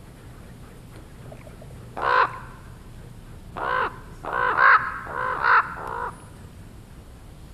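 Common ravens calling: one harsh caw about two seconds in, then a quick run of about five more caws.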